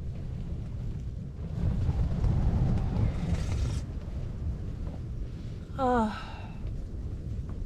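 Strong wind buffeting the tent and rumbling on the microphone, a gust swelling louder about two seconds in and easing off. Near the end, a short wavering "ah" from a person.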